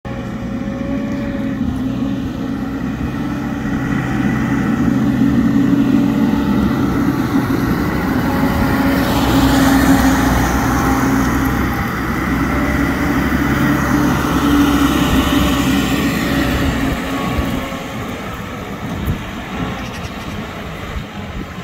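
Manitou MSI 30 rough-terrain forklift's diesel engine running steadily as the machine drives past. It grows louder as it comes close, about halfway through, then fades as it pulls away near the end.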